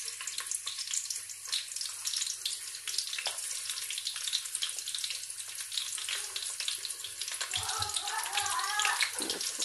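Hot oil in a cooking pan sizzling and crackling steadily as sliced onions are added for frying.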